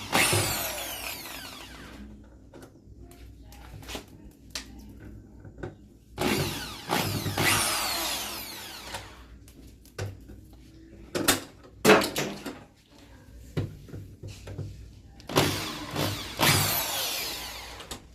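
Power drill running in three bursts of a few seconds each, its whine falling in pitch as it runs. Between the bursts come sharp knocks and clanks of parts being handled.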